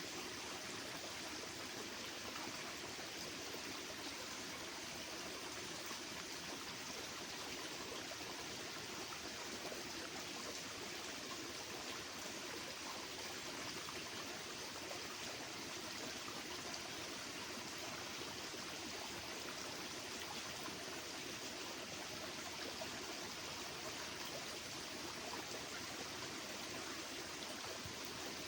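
Steady, even rushing noise like flowing water, with no distinct bird calls standing out.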